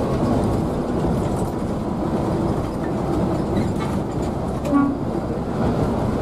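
Steady drone of engine and road noise inside the cabin of a Scania K360iB coach cruising on a highway. About five seconds in comes one short horn toot.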